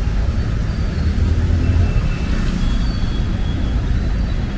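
Steady road-traffic rumble along a busy city main road, with a few faint high tones around the middle.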